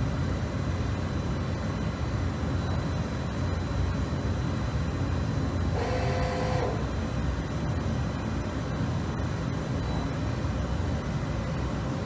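Steady machine running noise with a low hum, typical of a CNC machining centre in operation; about six seconds in a short pitched whine sounds for under a second.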